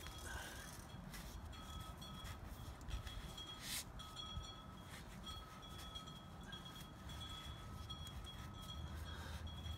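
Faint rubbing of a microfiber cloth wiping loosened, degreaser-soaked grime off an oily aluminium drivetrain casing, over a low rumble. Faint steady high tones come and go, and there is a short hiss about three and a half seconds in.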